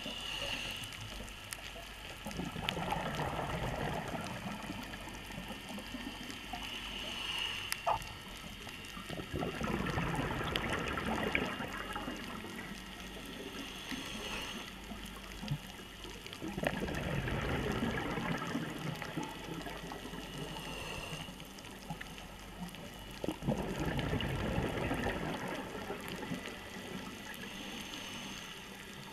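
Scuba diver's regulator breathing recorded underwater: rushes of exhaled bubbles rising in swells about every six to seven seconds over a steady underwater hiss, with a few scattered sharp clicks.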